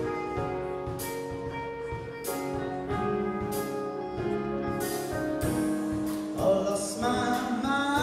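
Live band playing piano, electric guitar and drum kit, with cymbal strokes keeping time. A singer comes in over the band about six and a half seconds in.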